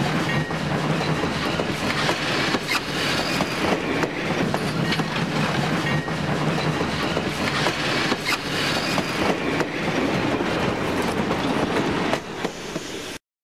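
Model railroad cars rolling past close by: a steady rumble of wheels on the track with irregular sharp clicks over the rail joints. It cuts off suddenly near the end.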